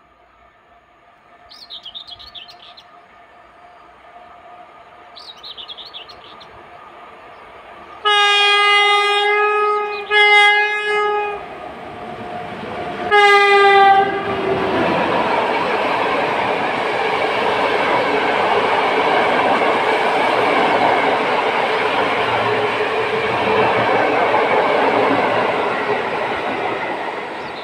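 PKP EU07 electric locomotive approaching with a faint hum, then sounding its horn three times, the first two blasts close together and a shorter one about two seconds later. The locomotive and its long train of carriages then run past with a loud steady rumble and clatter of wheels on the rails. Birds chirp twice early on.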